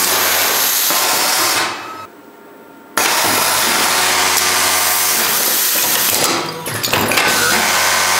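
Industrial overlock sewing head (a Juki MO-6900 on an automatic serging unit) running at high speed while the belt feed carries the cloth through, a steady whir over a motor hum. It fades out about two seconds in, is much quieter for about a second, then comes back suddenly, with a brief dip about six and a half seconds in.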